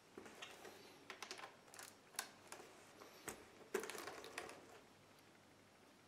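Kensington tubular cable lock clicking and rattling as it is fitted into a laptop's security slot: a run of small sharp clicks, the loudest a little past the middle, then it goes quiet.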